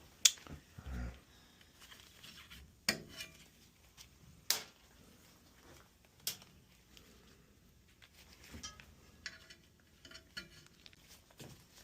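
A few sharp metallic clinks and clicks, a second or two apart, then a cluster of fainter ticks near the end: metal tools or fittings being handled.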